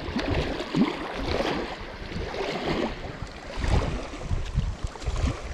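Small waves lapping and splashing against a rock shoreline, with gusts of wind rumbling on the microphone.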